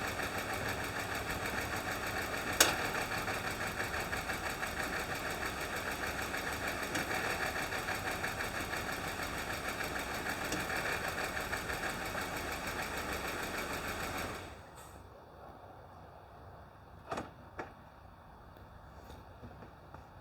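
A 2015 Jeep Wrangler's 3.6-litre V6 running steadily with a fast, even ticking, the lifter tick the engine is known to have. A single sharp click comes a few seconds in. The engine sound stops abruptly about two-thirds of the way through, and two short clicks follow.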